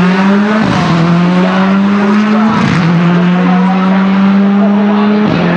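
Renault Clio N5 rally car engine accelerating hard up through the gears: three quick upshifts, each a brief break in the sound before the engine note climbs again from lower revs.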